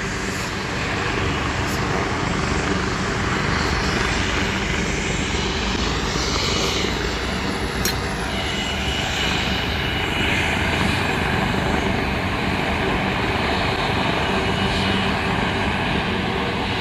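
Air ambulance helicopter's turbine engines running steadily while it sits on the highway, mixed with the noise of highway traffic.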